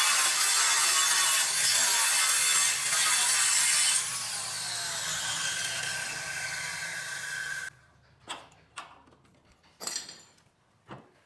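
A power tool cutting wood at full load, then easing off about four seconds in and winding down with a falling whine. It stops abruptly, and a few light knocks and clicks follow.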